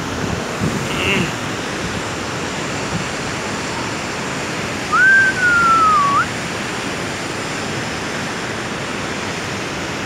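Steady rush of the Aharbal waterfall. About five seconds in, a single whistle glides slowly down in pitch for about a second, then sweeps sharply up and stops.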